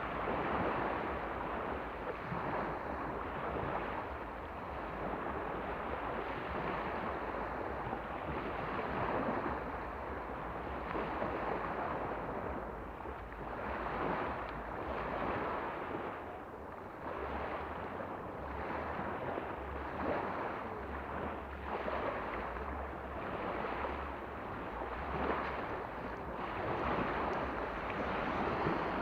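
Sea waves washing onto the shore, swelling and ebbing every few seconds, with wind rumbling on the microphone.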